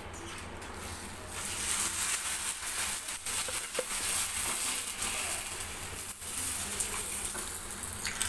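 Hot oil sizzling in a frying pan: a steady hiss that grows louder about a second in, dotted with light crackles.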